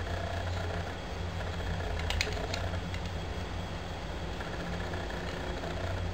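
A steady low hum, with a few sharp light clicks about two seconds in from the plastic sunglasses frame being handled.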